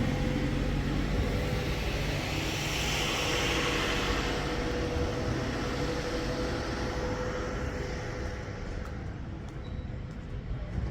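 A vehicle engine running steadily with a held hum, a hiss swelling a few seconds in and the sound slowly fading near the end.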